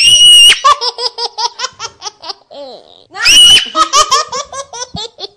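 A person laughing hard: a loud high shriek at the start and another about three seconds in, each followed by a run of quick ha-ha pulses.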